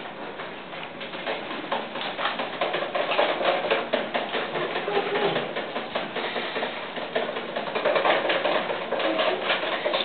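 A spoon stirring orange gelatin powder into hot water in a bowl, with a rapid, continuous clicking and scraping against the bowl.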